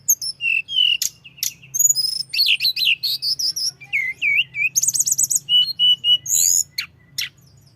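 Snowy-browed flycatcher (tledekan gunung) singing a fast, varied run of high chirps, quick trills and short whistled notes, with only brief gaps; the song thins out near the end.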